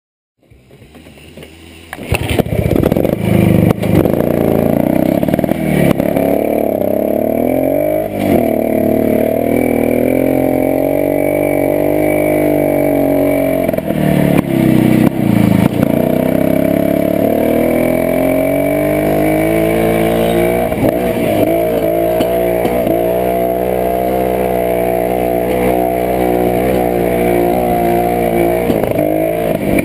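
Jawa 250 two-stroke single-cylinder motorcycle engine running under way, its revs rising and falling again and again as the throttle opens and closes. It comes in over the first two seconds and is joined by occasional knocks.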